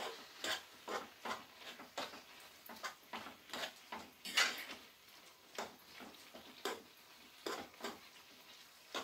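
A utensil stirring chunked chicken and vegetables in sauce in a frying pan, knocking and scraping against the pan in irregular clinks about one to three times a second.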